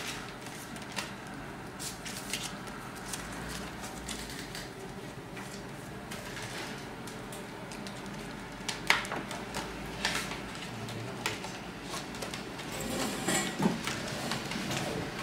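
Room noise with scattered small clicks and knocks, the sharpest about nine seconds in and a few more near the end.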